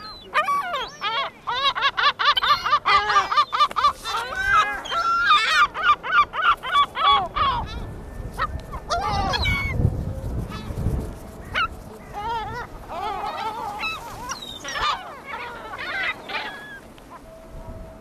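A flock of herring gulls and lesser black-backed gulls calling: a dense, rapid run of repeated calls for about the first seven seconds, then scattered single calls. A low buffeting rumble comes in the middle, as a gull flaps close past the microphone.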